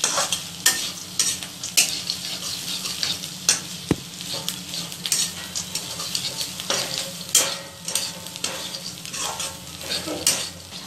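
A spatula stirring and scraping crushed mangodi, onion and potato around a metal kadhai in irregular strokes over a steady sizzle of frying in oil.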